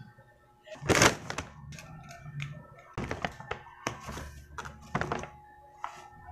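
A paper gift bag crinkling loudly about a second in, then a small cardboard box being pulled out and handled, with a series of light knocks and taps.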